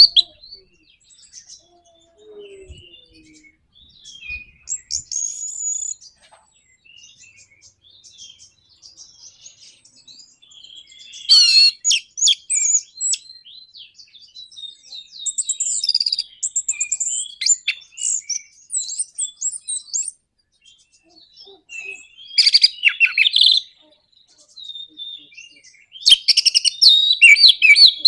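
Orange-headed thrush singing a varied song of short whistles and fast, rattling chatter, the rapid 'nraktak' style. Quieter scattered notes alternate with loud, dense bursts of chatter, the biggest around the middle and again near the end.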